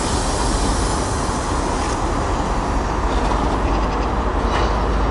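Engineering train of flat wagons loaded with concrete sleepers rolling past on the rails in a steady rumble, with a few faint wheel clicks as the last wagons go by.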